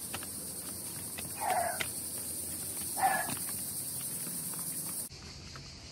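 Footsteps on stone paving under a steady high insect drone, with a short animal call twice, about a second and a half apart. The drone cuts off suddenly near the end.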